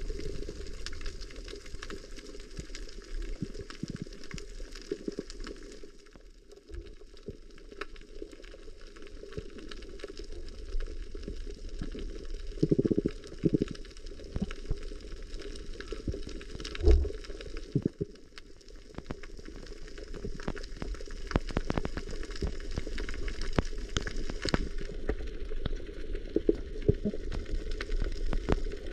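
Underwater sound on a coral reef, picked up by a submerged camera: a dense crackle of small clicks over a low rumble, with a few louder low gurgles about halfway through.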